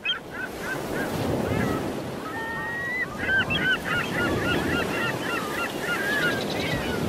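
Waterbirds calling in short cries, coming in quick runs around the middle, over a steady rush of wind and water at the shoreline.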